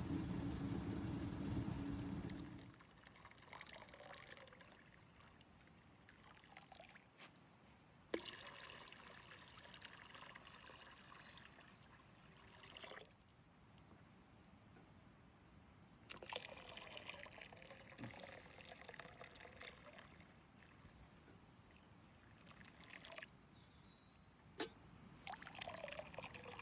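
A steady low hum stops about two seconds in. After it, water pours and trickles in three separate spells of several seconds each, as from a shower used to rinse off, with a few faint knocks in between.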